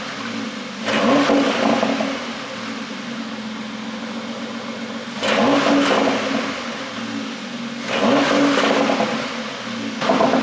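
Porsche Panamera 4's twin-turbo V6 idling and blipped four times, each rev about a second long, with exhaust popping and crackling as the revs fall.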